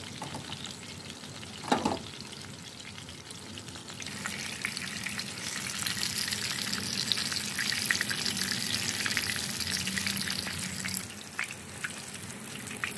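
Chapli kababs (mutton mince patties) shallow-frying in hot oil in a grill pan, a steady sizzle that grows louder about four seconds in and eases off near eleven seconds. A single brief clunk just under two seconds in.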